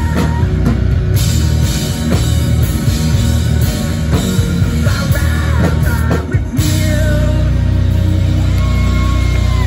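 Live rock band playing loud, with distorted electric guitar, bass and a drum kit. About six and a half seconds in, the busy playing gives way to a held, ringing chord.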